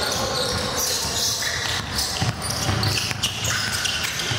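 A basketball bouncing on a gym court during play, with several sharp hits standing out about two and three seconds in, over the chatter of voices in the stands.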